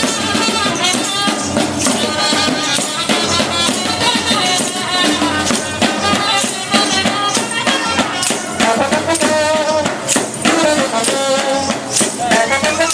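Rhythmic devotional dance music: dense, fast percussion strikes with a wavering melody line over them.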